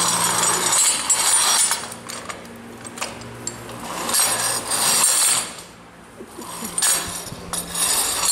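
Steel rods and small metal parts of a cloth-cutting machine's accessory kit being handled, clinking and rattling against each other in uneven bursts, with a few sharp ticks.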